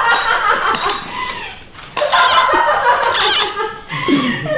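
High-pitched wordless squealing and laughing voices, with a few sharp clinks of steel ladles against small steel bowls.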